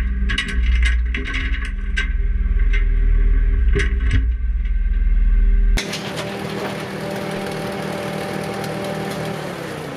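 For the first six seconds, a heavy low rumble with scattered metal clanks and clinks as a chained truck rear axle hanging from a tractor's front loader is lowered into a truck bed. Then, cut off suddenly, the farm tractor's engine idles steadily.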